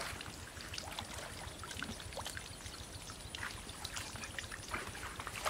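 Small splashes and trickling of water as a plastic basket is swished through shallow muddy pond water and drained, in short irregular splashes.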